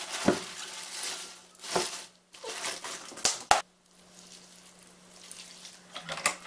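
Hands pressing and turning cut napa cabbage leaves in a stainless steel bowl as they are salted: crisp leaves rustling and crunching, with a few sharp knocks against the bowl. It goes much quieter a little past halfway.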